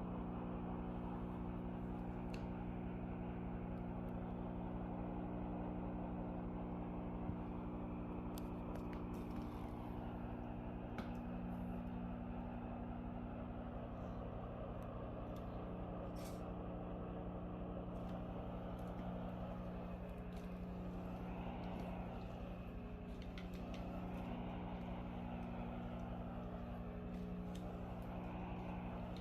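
Benheim BSM-800WH steam mop running: a steady electric buzz from its water pump, with a softer shifting noise over it and a few faint clicks.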